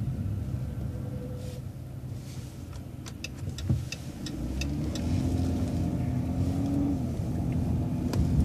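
City transit bus heard from inside, engine running as it pulls away through a turn. There are a few light clicks about three seconds in, and from about five seconds the engine works harder with a rising hum that eases near seven seconds.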